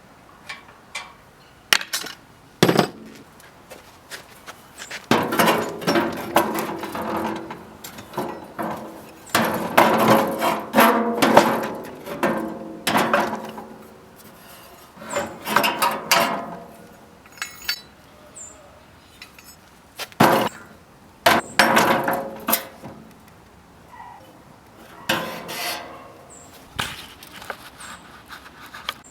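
Irregular knocking, clattering and scraping of tool parts being handled and worked by hand, in uneven bursts with pauses between.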